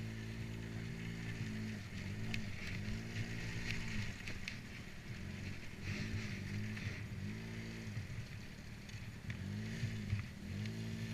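ATV engine running under way, its pitch swelling up and dropping back several times as the throttle is opened and eased off.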